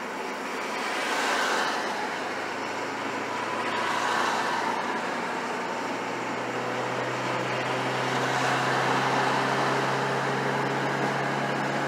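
1995 Ford Ranger's 2.3-litre inline-four pulling hard at wide-open throttle in one gear. Its note rises slowly and steadily as the revs climb from about 2800 to 4000 rpm, under road and wind noise heard inside the cab.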